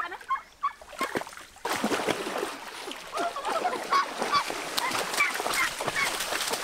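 Many birds calling in short, overlapping calls. From about two seconds in, a steady splashing of water joins them.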